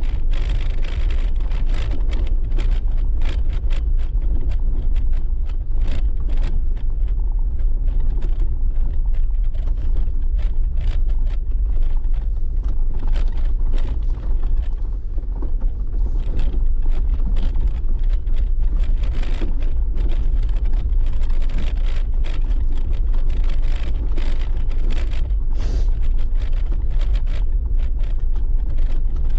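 Jeep driving over a rough dirt track: a steady low rumble of tyres and drivetrain, with frequent small knocks and rattles as it rides over stones and ruts.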